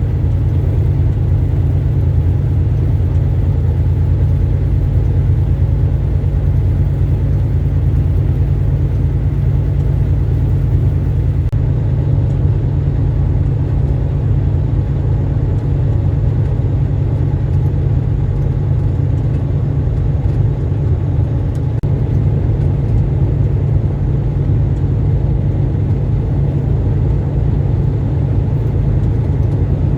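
Semi truck's diesel engine running: a loud, steady low drone that holds unchanged throughout.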